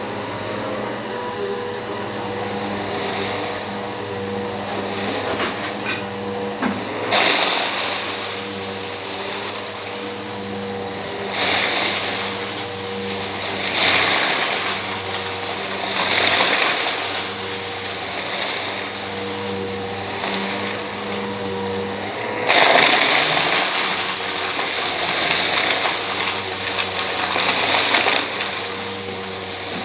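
Eureka PowerSpeed vacuum cleaner running with a steady motor hum and whine. From about seven seconds in, its airflow swells into louder rushing surges every few seconds as it works.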